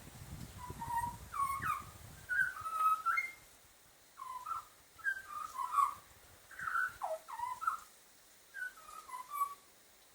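Bird calling in short whistled, warbling phrases, one every second or so with brief pauses between. A low rumble runs under the first second or so.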